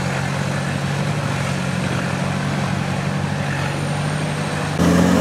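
Nissan Patrol 4x4 engine running at a steady low speed as it crawls through mud. Near the end the sound changes abruptly to a louder engine note with a different pitch.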